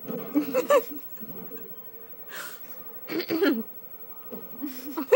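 A baby's excited wordless vocalizing: short, high-pitched grunts and squeals in three bursts, at the start, around three seconds in and near the end, with breathy sounds between.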